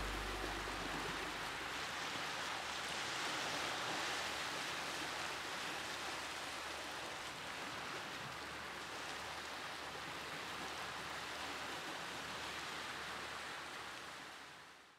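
Small sea waves washing over and around shoreline rocks, a steady hiss of surf that fades out near the end.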